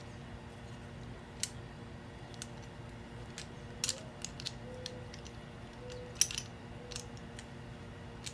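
A few sharp metallic clicks and clinks, spread out, as pliers grip and turn a 1/8-inch gas elbow fitting to tighten it, over a low steady hum.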